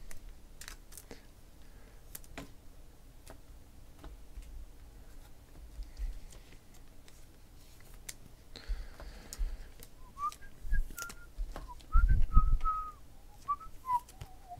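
A person whistling a few short notes of a tune in the second half, over light clicks and taps of trading cards being handled and set down on a table, with a thump near the end.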